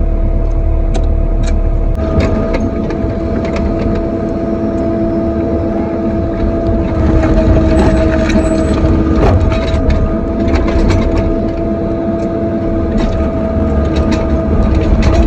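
Excavator's diesel engine and hydraulic pump running steadily under digging load, with a steady whine and scattered knocks and clatters of the bucket working the dirt.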